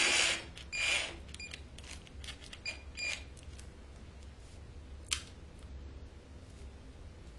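A cordless drill spinning a soda-can coil former cuts off right at the start. Then come scattered light clicks and ticks as hands handle the copper winding wire and the can, several in the first few seconds and one sharper click about five seconds in.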